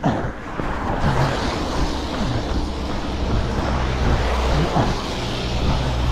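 Cars driving past on a wet road, their tyres hissing on the wet surface over a steady low rumble.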